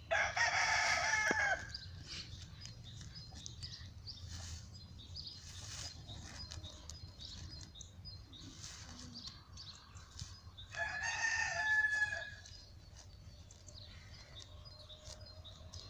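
A rooster crowing twice: one crow right at the start and another about eleven seconds in, each lasting about a second and a half.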